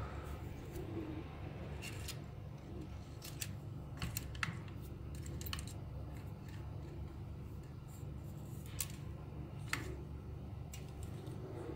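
Scattered small clicks and ticks from wires and plastic toy parts being handled on an opened circuit board, over a steady low hum.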